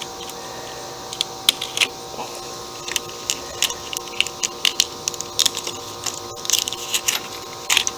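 Irregular sharp clicks and snaps of small plastic zip ties being taken off a plastic drive-cable cover, a few louder snaps near the end.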